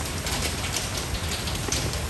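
Steady rain falling, with many separate drop hits over a low rumble.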